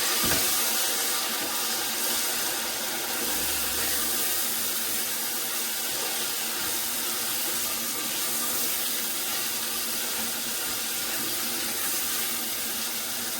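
Steady sizzling hiss of food cooking in a pot on the fire, with a short knock right at the start.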